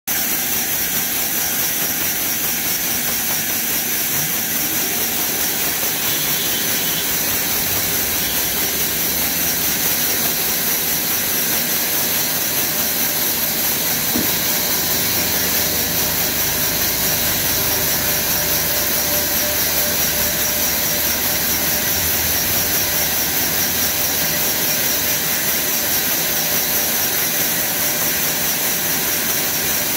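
Large horizontal band sawmill running, its blade sawing lengthwise through a log: a loud, steady hiss of saw and machinery that stays even throughout.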